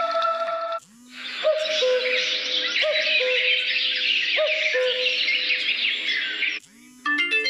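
Huawei P30 Lite nature-sound ringtone of birdsong: dense chirping over low hooting calls that repeat about once a second. It starts about a second in and stops shortly before the end. The tail of a melodic ringtone is heard at the very start, and another melodic ringtone begins near the end.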